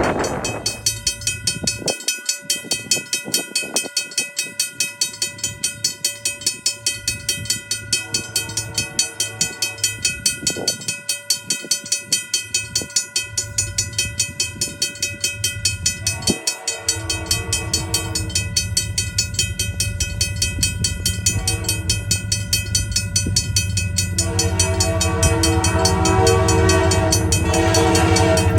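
Grade-crossing bells ringing fast and steadily while an approaching train sounds its horn in several blasts, the last one held long near the end. The low rumble of the train grows louder in the second half.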